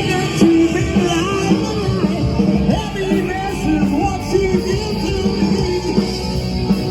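Live hard-rock band playing loud, with electric guitar and a singer's voice over a dense full-band sound.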